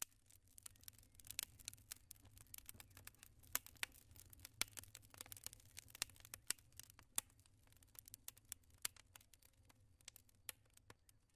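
Wood fire crackling faintly: irregular sharp pops and snaps over a low, steady rumble.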